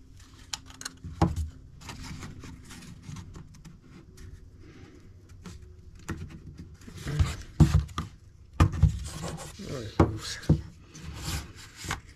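Laser-cut plywood and acrylic parts of a ROKR Time Engine Calendar kit being worked together by hand on a wooden axle: wood rubbing on wood with scattered clicks and knocks, busier and louder in the second half.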